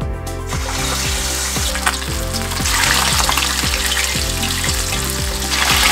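Turmeric-marinated catfish pieces frying in a shallow layer of hot peanut oil in a stainless steel pan: a dense sizzle that builds about half a second in and grows louder around three seconds in, with background music underneath.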